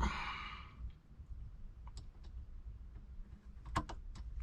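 A short scraping rasp, then a few sharp, scattered clicks from a screwdriver and small metal parts being handled while a steering wheel is fitted to its hub.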